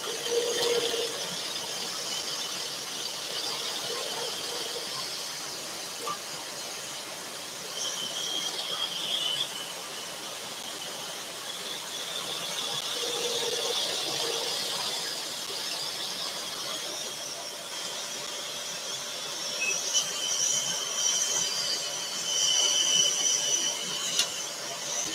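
Scroll saw running and cutting tight fretwork in a thin panel, a steady high-pitched whine and hiss from the blade that grows louder in spells as the work is fed into the cut. A sharp click near the end.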